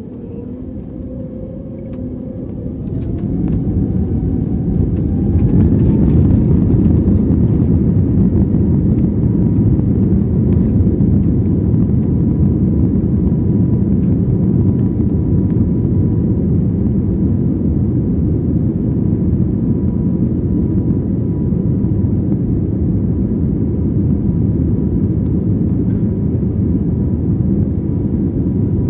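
Airbus A320-family airliner's jet engines spooling up to takeoff thrust, heard from inside the cabin: a whine rising in pitch over the first five or six seconds, then a steady high whine over a loud, even rumble as the plane accelerates along the runway on its takeoff roll.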